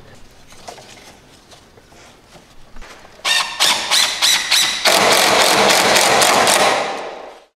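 DeWalt cordless impact driver sinking a screw through a shim into a door jamb. About three seconds in come several short trigger bursts, then a couple of seconds of continuous hammering that stops abruptly near the end.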